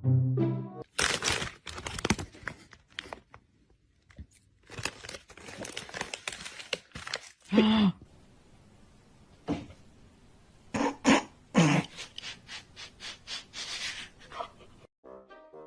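Irregular knocks, taps and scrapes, with two short pitched cries, one about eight seconds in and one near twelve seconds.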